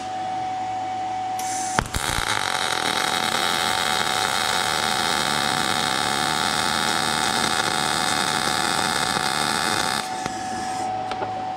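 Gas-shielded MIG welding arc (75% argon, 25% CO2) laying a bead on steel: a steady, even crackle that strikes about two seconds in and cuts off near the end, about eight seconds long. A quieter steady hum runs underneath before and after the arc.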